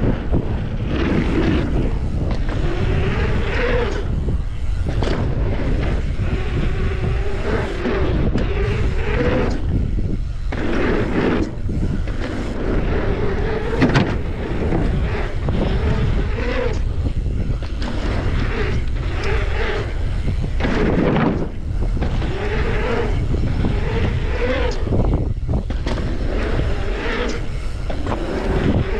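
Mountain bike ridden fast over paved rollers and a wooden ramp: wind rushing on the microphone, knobby tyres rolling on the surface with a hum that rises and falls as speed changes, and scattered knocks and rattles from the bike over bumps and landings.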